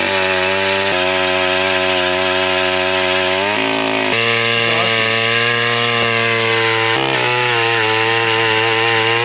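Gas-powered ice auger's small engine running under load, drilling a hole through thick lake ice. Its steady engine note shifts pitch about three and a half seconds in and again near seven seconds.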